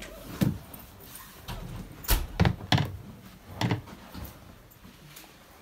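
A handful of knocks and thumps at irregular intervals, about six in all, the loudest a sharp knock about two seconds in.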